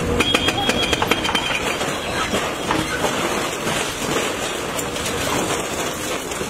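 Doosan wheeled excavator demolishing a building front: irregular clattering and crashing of breaking concrete and falling debris over the machine's steady engine rumble, busiest in the first couple of seconds.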